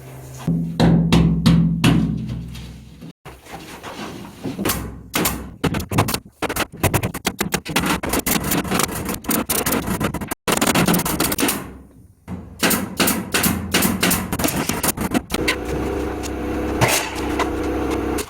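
Background music with drums and percussion, full of sharp hits over held low notes, cutting out abruptly twice.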